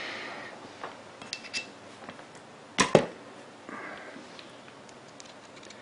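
Light metallic clinks and taps of small parts and tools being handled while reassembling an airsoft sniper rifle. A sharp double click about three seconds in is the loudest sound.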